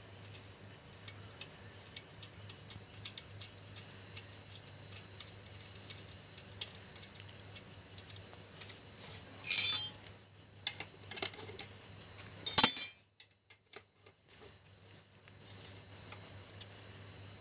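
Small metal parts and tools clicking and clinking as screws and washers are handled on a sewing machine clutch motor. There are two louder metallic clatters, one about ten seconds in and a louder one about a second and a half later, over a low steady hum.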